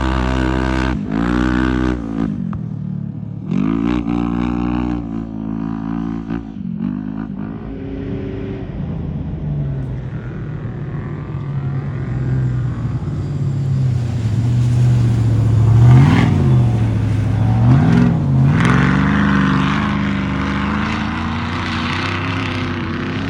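Off-road race vehicle engines. In the first seven seconds an engine revs up and drops back several times. Then another engine draws closer and gets louder, loudest about two-thirds through, with two quick dips and rises in pitch.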